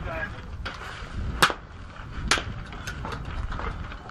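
Two sharp cracks of rifle fire, the louder about a second and a half in and the other about a second later, over the scuffing and rustling of a shooter getting up off a prone mat and moving into a kneeling position.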